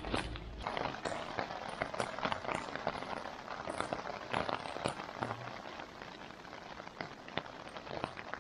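Light rain pattering on the nylon tent fly: scattered, irregular drop ticks over a soft hiss, with some fabric rustling near the start.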